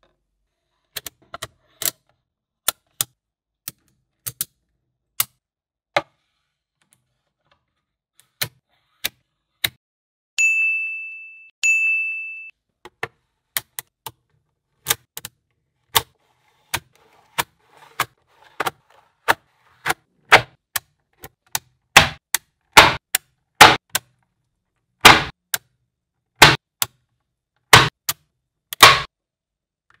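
Small magnetic balls snapping together one by one in sharp, irregular clicks, louder and closer together in the second half. Twice, a little after ten seconds, a short bell-like ding rings and fades.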